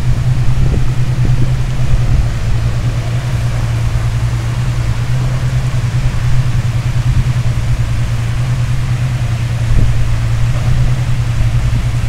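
Small waterfall spilling over a curved stone weir into a pool: a steady rushing of water with a strong low rumble.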